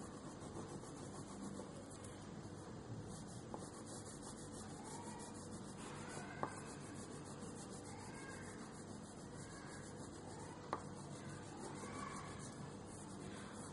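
A crayon scribbling rapidly back and forth on paper, a steady scratchy rubbing, with two short clicks, about halfway through and near the end.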